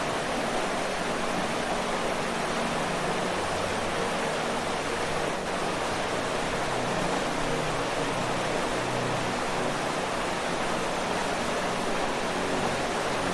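Waterfall: water falling and rushing in a steady, unbroken roar of white noise.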